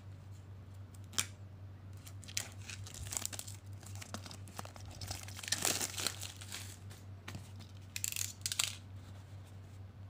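Clear plastic shrink wrap being torn and peeled off a small cardboard box, crackling and crinkling in bursts for several seconds, loudest about six and eight seconds in.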